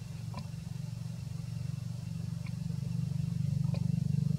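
A motor engine running steadily as a low hum, growing louder toward the end, with a few faint ticks over it.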